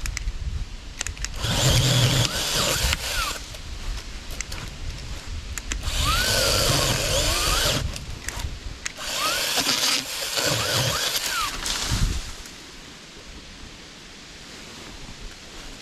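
Cordless 20-volt mini chainsaw running in several short bursts of about two seconds each as it cuts tree limbs, its motor pitch sagging and recovering as the chain bites. The bursts stop a little past the middle.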